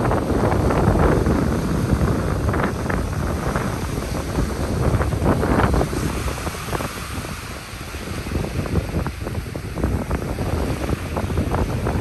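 Ocean surf breaking and washing on a beach, loudest in the first half, with wind buffeting and rumbling on the microphone throughout.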